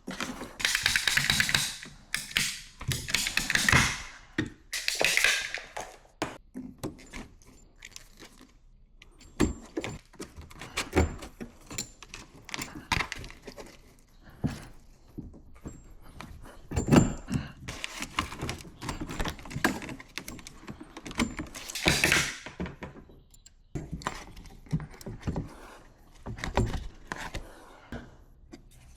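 Work noise from shower-valve plumbing: irregular clinks, thunks and scrapes of tools and metal parts being handled, with a few short rasping bursts near the start and again later.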